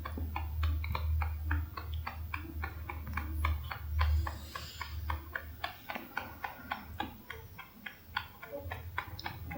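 Holland Lop rabbit chewing hay, a quick, even run of crisp crunches about five a second. A second rabbit's snore sounds beneath it, its breathy rasp loudest about four seconds in.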